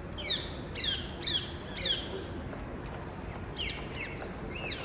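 A parrot calling: short calls, each falling in pitch, four in quick succession, then a pause and a few more near the end.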